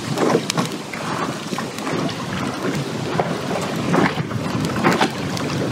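Wind buffeting the microphone in uneven gusts, over choppy water lapping against a wooden pier.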